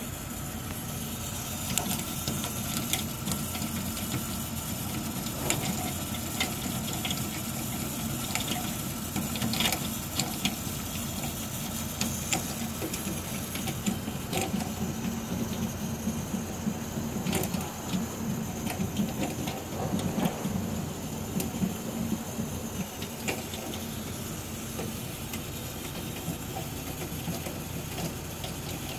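Beretta Ciao bithermic gas boiler heating domestic hot water: a steady hum with irregular knocks and crackles from the heat exchanger, the noise of an exchanger clogged with limescale, where the water is probably boiling inside it.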